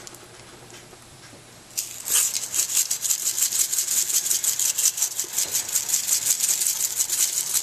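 Dry seasoning rattling in a plastic Grill Mates shaker, shaken rapidly over a raw ribeye. It starts after a quiet second or two and runs on as a fast string of crisp shakes.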